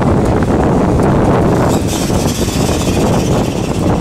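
Freight train boxcars rolling past, a loud, steady rumble of steel wheels on the rails, with wind buffeting the microphone.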